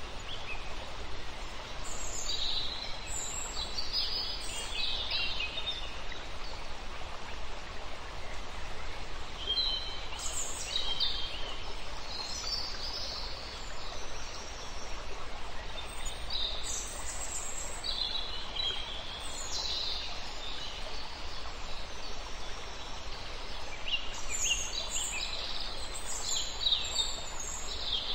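Small birds chirping in several short bouts over a steady background hiss.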